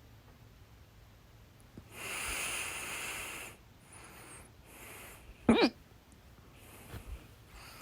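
A woman's single loud hiccup, short and sharp with a squeaky voiced catch, about two thirds of the way in. Before it comes a breathy hiss of about a second and a half, then a couple of fainter breaths.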